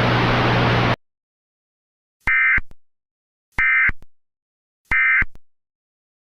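Emergency Alert System End-of-Message data signal: three short, identical bursts of screechy digital warbling about a second and a quarter apart, marking the end of the alert. Before them a steady hiss of static with a low hum cuts off abruptly about a second in.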